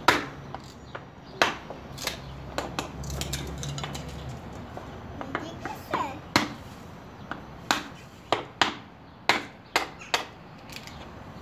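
A string of irregular sharp knocks and clicks from a child handling a plastic bag and things on a wooden picnic table, with a few brief bits of a child's voice.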